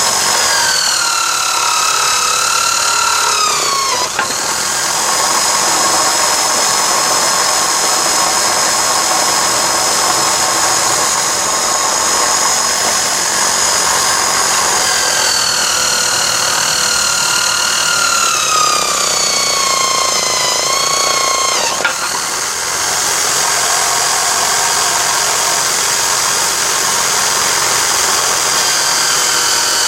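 Electric drill driving a homemade cylindrical sanding drum, its motor whining steadily at full speed. Twice the whine sags lower as wood is pressed against the drum and the motor is loaded, then a short click and the pitch jumps straight back up.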